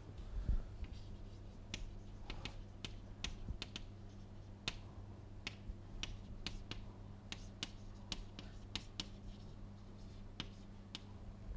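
Chalk writing on a blackboard: a string of sharp, irregular chalk taps and short strokes as words are written, over a steady low hum. A low bump sounds about half a second in.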